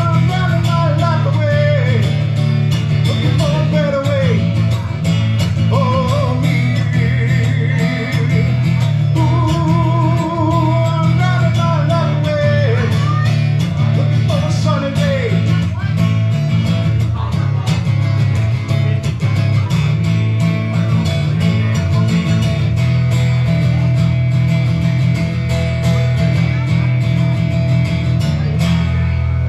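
Live acoustic guitar strummed under a man's singing, with a strong low bass underneath; the singing stops about halfway and the guitar and bass play on.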